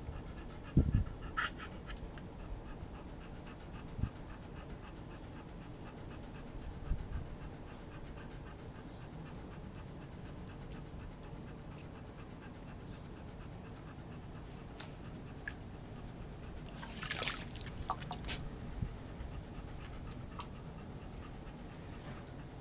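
Wire fox terrier panting steadily, open-mouthed, in the heat. A short burst of noise comes about 17 seconds in.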